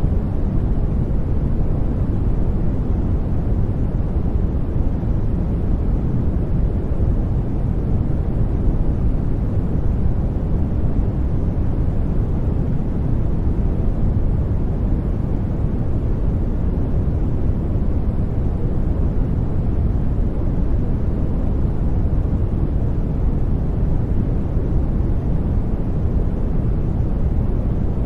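A steady sleep-aid noise track: an even, deep rushing noise, heavy in the bass and soft in the treble, with no change at all.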